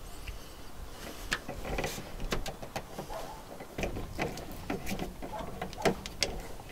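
Hands working a clear plastic fuel hose onto a small fitting: irregular clicks, taps and rubbing of tubing and plastic parts.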